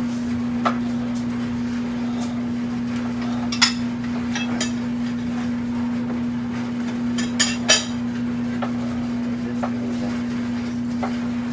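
Knife knocking on a cutting board in irregular, sharp taps as a red bell pepper is sliced into strips, the loudest few coming in two short clusters, over a steady low hum.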